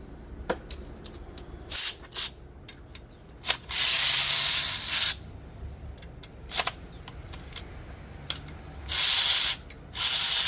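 A pressurised spray hissing out in a series of bursts: several short squirts and two or three longer ones of about a second. A sharp metallic click and brief ringing come near the start.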